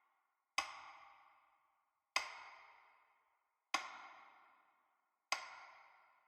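A single struck, ringing tone repeated four times at an even pace, about every second and a half, each strike sharp and then fading away.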